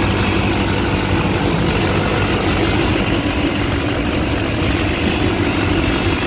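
Chevrolet Duramax diesel engine idling steadily, with no humming from the belt drive now that both idler pulleys are new.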